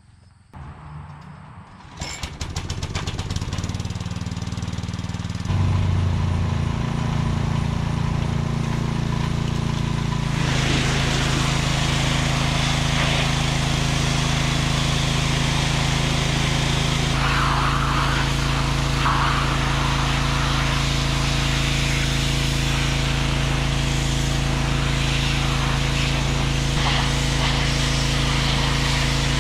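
Pressure washer starting up about two seconds in and then running with a steady motor hum that gets louder a few seconds later; from about ten seconds in the hiss of the high-pressure water jet spraying the house siding and eaves joins it and carries on.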